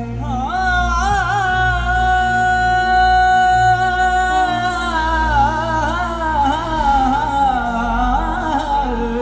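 Music amplified through a DJ sound system: a singer holds one long note for about four seconds, then sings a run of wavering, ornamented turns, over a pulsing heavy bass.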